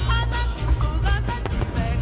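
Music with a heavy, steady bass and a sliding, wavering lead melody over regular percussion hits; no singing in this stretch.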